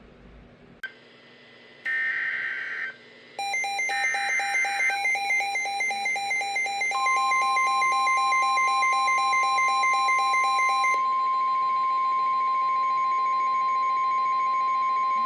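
Weather radio emergency alert announcing a Special Marine Warning. Two short warbling bursts of digital header tones come first. A rapid pulsing beep follows, then a single steady alert tone comes in about seven seconds in and holds to the end.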